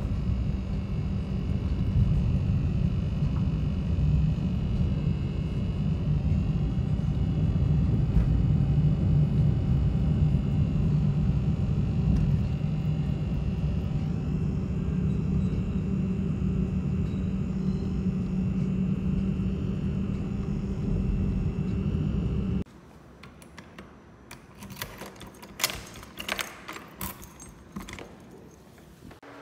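Car cabin noise while driving: a steady low rumble of road and engine with a low hum. It cuts off suddenly about three-quarters of the way in, and is followed by a run of sharp clicks and rattles as a metal lever door handle is worked.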